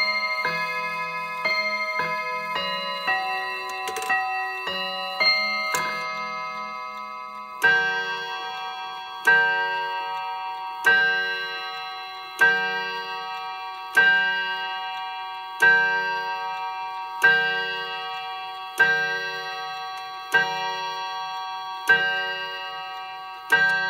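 Hermle Tradition triple-chime clock's hammers striking tuned chime rods: the last notes of a chime tune ring out in quick succession, then, after a short pause, the clock strikes the hour with slow, evenly spaced single strokes, about eleven of them, each ringing and fading before the next.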